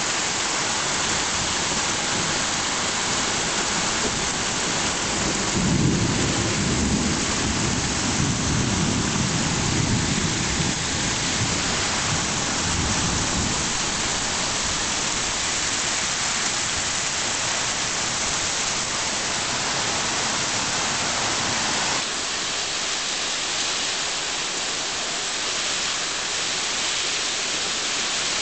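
Torrential rain pouring down in a steady, dense hiss. A deep rumble swells for several seconds in the first half, and the rain eases slightly a little past the middle.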